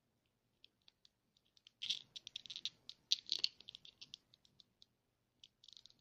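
Quick small clicks and taps of hard plastic as a toy figure is pushed and twisted onto its clear plastic display stand, a fiddly fit. A few scattered clicks, then a dense run of them from about two seconds in, and more near the end.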